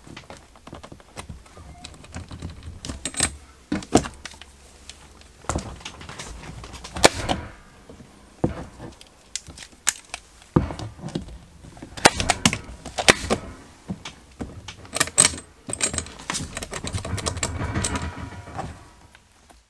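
Irregular clicks, taps and knocks, some in quick clusters, of hands working a gray conduit fitting, its metal hardware and stiff feeder wires against a wooden wall board.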